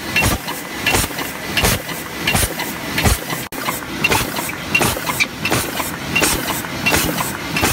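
Paper cup forming machine running, with a rhythmic metallic clatter about once every three quarters of a second and lighter clicks between, over a steady running noise. The sound drops out for an instant about halfway through.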